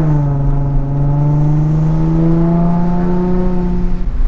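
A 2007 Nissan 350Z's V6 engine, heard through an eBay catback exhaust with the muffler deleted, pulling under acceleration. Its pitch dips at the start, climbs steadily, then falls away sharply about four seconds in as the throttle comes off.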